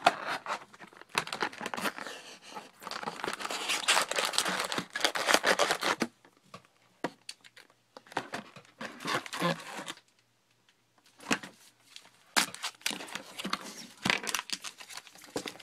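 Foil trading-card packs and their box wrapping crinkling and tearing as they are handled and pulled from an opened card box. A long stretch of dense crinkling comes first, then shorter bursts with small clicks.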